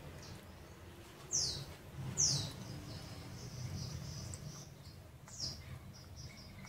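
A bird chirping: short high chirps that each drop quickly in pitch, scattered irregularly, the two loudest about a second and a half and two seconds in, over a steady low hum.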